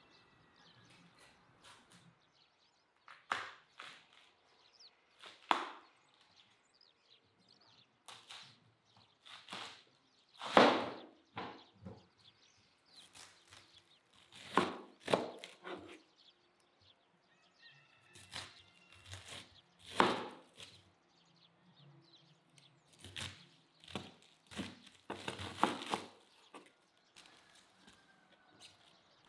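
Large knife cutting and chopping through a crisp head of white cabbage on a wooden board: irregular crunching cuts, a few sharp and loud, the loudest about ten seconds in and again about twenty seconds in.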